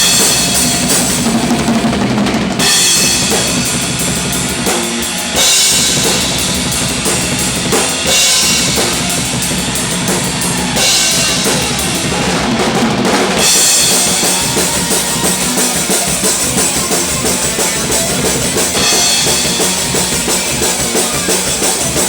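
A band jamming loud, with the drum kit out in front: bass drum, snare and cymbals busy throughout, and the playing shifts between sections a few times. Recorded through a handycam's built-in microphone.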